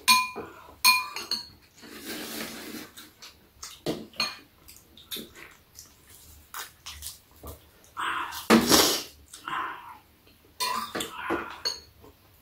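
Metal spoons clinking and scraping against bowls during a meal, opening with two ringing clinks, followed by scattered lighter taps. A louder, brief noisy sound comes about eight and a half seconds in.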